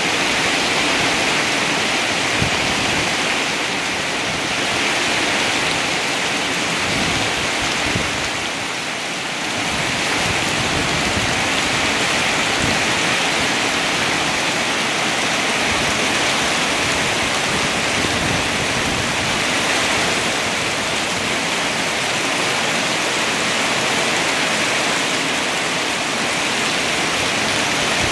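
Heavy downpour pounding steadily on a paved yard covered in standing water and on the leaves of potted plants: a dense, even hiss of rain. It eases briefly about eight seconds in.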